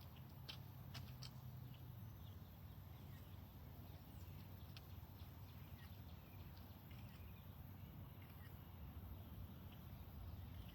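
Near silence: faint outdoor background with a steady low hum and scattered faint ticks and short chirps.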